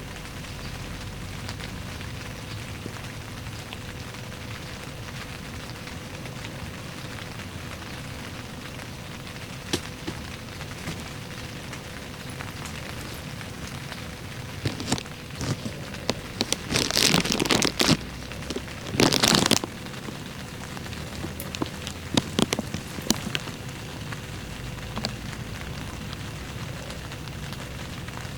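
Steady rain falling. Partway through, a run of loud, sharp crackling and rustling noises comes in over it for several seconds, in two main bursts, then dies away.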